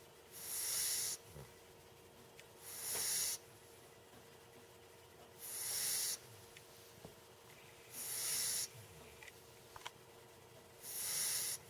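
Puppy snoring in its sleep: a breathy hiss on each breath, about every two and a half seconds, five times, each lasting under a second, some followed by a brief low snuffle.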